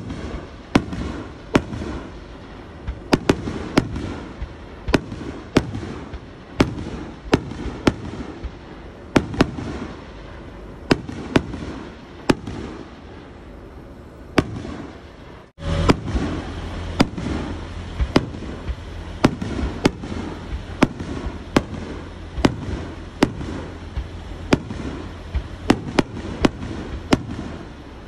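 Aerial firework shells bursting overhead, a close run of sharp bangs, one or two a second, with crackle between them. About halfway through the sound cuts out for a moment, and after that a steady low hum runs under the bangs.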